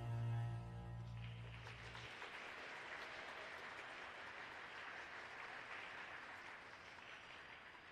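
The final held chord of the program music fades out over the first two seconds. Faint applause begins as it ends and slowly dies away.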